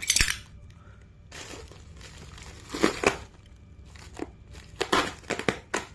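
Watch packaging being unwrapped by hand: irregular rustles and scrapes of wrapping material, loudest about three seconds in and again around five seconds.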